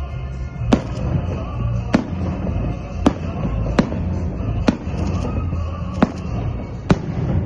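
Fireworks shells bursting in a salute display: seven sharp bangs at roughly one-second intervals over a steady low rumble.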